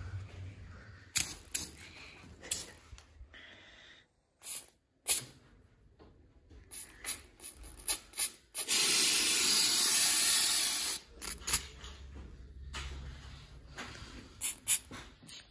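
Aerosol can of spray snow hissing in many short spurts, with one long loud burst of about two seconds in the middle.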